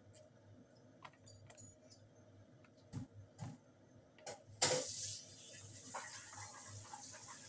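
Wooden chopsticks clicking, tapping and scraping in a plastic noodle tray while noodles are eaten, with a few louder knocks about three seconds in and a sharper one just after halfway, followed by a steady hiss.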